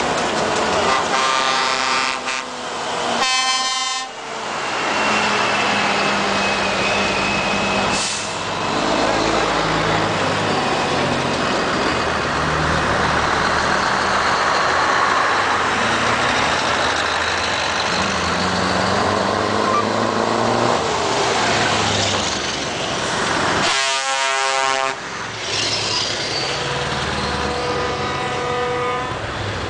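Heavy trucks driving past in a convoy, diesel engines running, with air horn blasts: a couple of short blasts in the first few seconds, a louder one about 24 seconds in, and fainter horn notes near the end.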